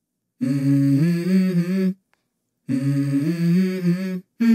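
Intro music: a hummed vocal melody moving in steps between a few held notes. It comes in two phrases of about a second and a half, each cut off abruptly into silence, then a short snippet near the end.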